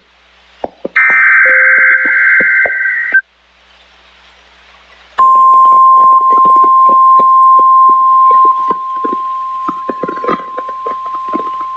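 NOAA Weather Radio Emergency Alert System sequence. A SAME header data burst, a harsh digital screech, runs from about one to three seconds in. After a short pause the steady 1050 Hz weather radio warning alarm tone starts about five seconds in, sounding a little softer from about nine seconds, with crackling static clicks on the radio reception throughout.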